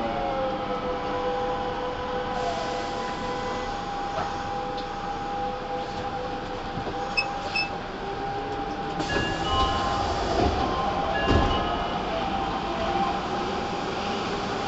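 Nagoya Municipal Subway 5050 series train running, heard from inside the car. A steady whine carries over wheel-on-rail noise, a second whine falls in pitch over the first two seconds, and a few knocks come about 10 to 11 seconds in.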